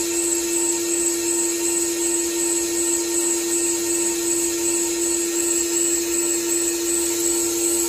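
CNC lathe turning a steel workpiece with a carbide insert under flood coolant: a steady machine whine on one held tone, with a high hiss from the cut.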